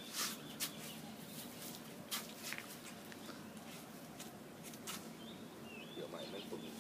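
Quiet outdoor background with a low steady hum, scattered faint clicks, and a few short bird chirps near the end.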